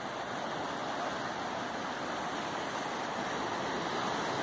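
Steady wash of surf breaking on the beach, slightly louder near the end.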